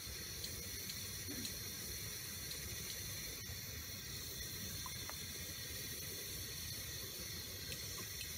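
Steady rushing hiss of a camp stove burner running under a cast iron skillet, with a few faint ticks as sesame oil is squeezed into the pan.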